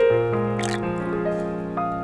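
Background music of overlapping held notes, entering one after another, with a brief soft noisy sound under a second in.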